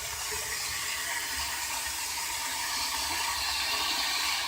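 Whirlpool Direct Drive top-loading washer filling with hot water: a steady rush of water pouring into the tub, slowly growing louder.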